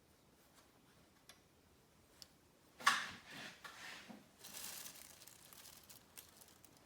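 Sudden knock or clatter about three seconds in, then a few seconds of rustling and scraping as tools and materials are handled at a workbench, with a few faint ticks before it.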